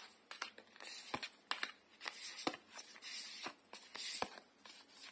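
Tarot cards being handled: cards slid against each other and flicked out of a held deck, a quick irregular run of soft clicks and swishes.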